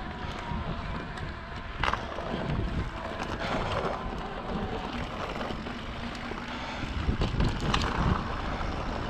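Wind buffeting the microphone over the steady rumble of an electric mountain bike's tyres rolling on a dirt trail, with a few sharp rattles from the bike over bumps, the loudest about two seconds in and another near the end.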